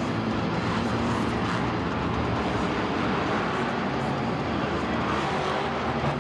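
Monster truck's supercharged V8 engine running loud and hard, its pitch shifting slightly with the throttle, over a dense haze of noise.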